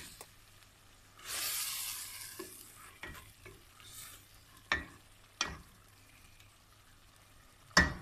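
Minced meat with tomato frying in a stainless steel pot while a wooden spoon stirs it. A burst of sizzling starts about a second in and fades over a couple of seconds, then the spoon knocks sharply against the pot three times.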